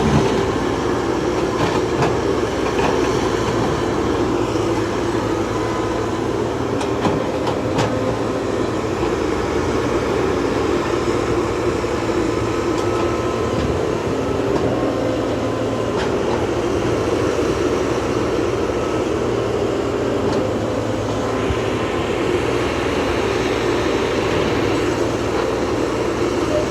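Excavator's diesel engine running steadily under load, with a few faint clanks about seven seconds in.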